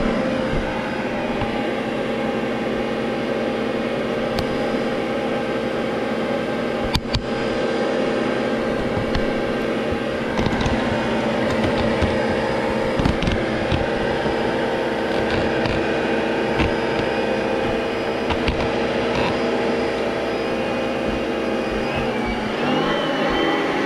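Vacuum cleaner motor running steadily, a constant hum with scattered clicks and rattles on top, its tone shifting near the end.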